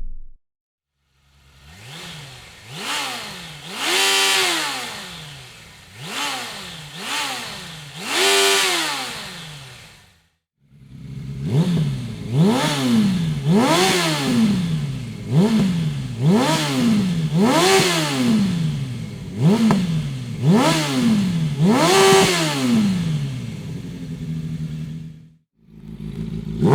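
Suzuki GSF 650 S Bandit's inline-four engine revved through a Dominator aftermarket exhaust, each throttle blip rising in pitch and falling back toward idle. First comes a run of about five blips, then a brief silence, then a run of about eight quicker blips over a steady idle.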